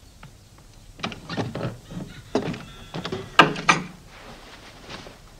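Wooden door being shut: a run of knocks and clicks starting about a second in, with the two loudest thuds about three and a half seconds in.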